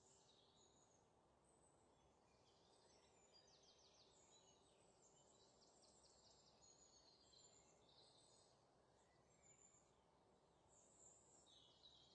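Near silence, with faint high bird chirps and quick trills scattered throughout over a low steady background hiss.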